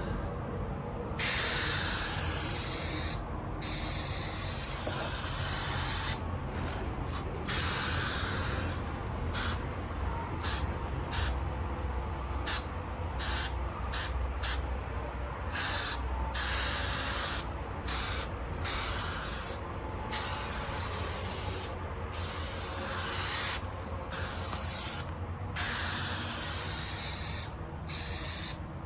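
Aerosol can of headliner spray adhesive spraying in repeated hissing bursts, each a second or two long, with short breaks between, as the glue is laid over the headliner board.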